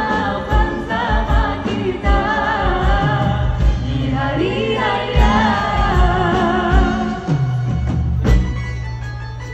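Live band playing a Malay Hari Raya pop song, with a woman singing lead into a microphone over electric guitar, bass and drums keeping a steady beat.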